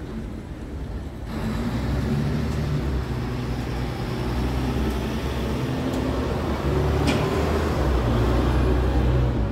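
Scania R tractor unit's diesel engine idling, a steady low hum with a hiss above it that gets louder about a second and a half in.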